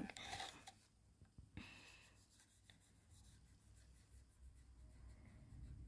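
Felt-tip marker scratching faintly on a card ornament as its edge is coloured in.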